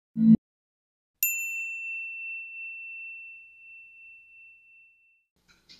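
A brief low thump right at the start, then a single bright chime struck once about a second in, ringing on one clear high note and fading away over about four seconds.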